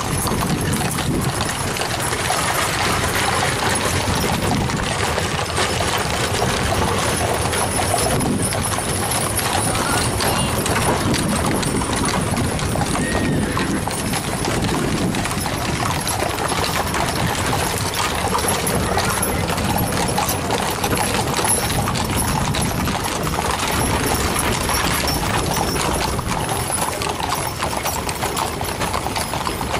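Hooves of many horses clip-clopping on an asphalt road as a line of horse-drawn covered wagons and riders passes, a continuous overlapping patter of hoof beats.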